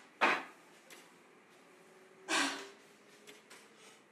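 A woman gasping twice, two short sharp breaths, one just after the start and one about two seconds later.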